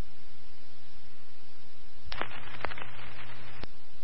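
Radio scanner channel between transmissions: a steady hiss with a low hum, broken by a few sharp clicks from about two seconds in.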